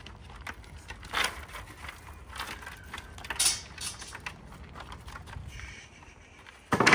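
Basenji walking across a wooden dog-agility ramp: scattered clicks and knocks of paws and claws on the wooden slats, with the boards creaking. A louder burst of sound comes near the end.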